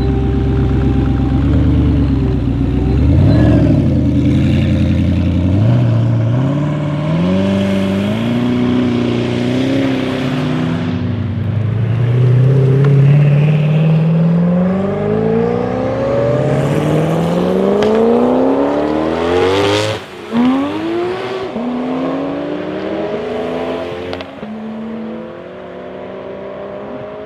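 Koenigsegg supercars' twin-turbo V8 engines accelerating hard away from a standstill, the revs climbing in repeated rising sweeps. There is one sharp crack about two-thirds of the way through.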